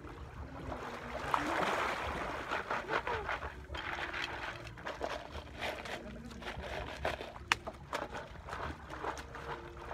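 Shallow seawater sloshing and splashing around shoreline rocks as hands work in it, with many short clicks and knocks, the sharpest about seven and a half seconds in.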